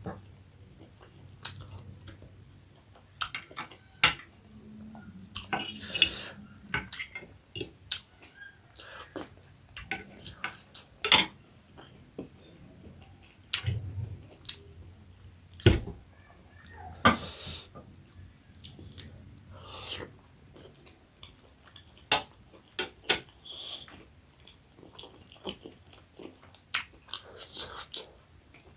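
Close-up eating of momo dumplings: wet chewing sounds with irregular clinks of cutlery against a dish.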